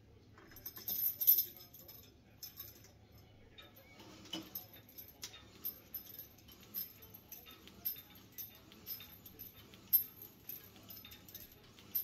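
Cable pulley machine's metal chain and bar attachment jangling as it is grabbed, about a second in. Then short metal clinks come roughly once a second with each tricep pushdown rep.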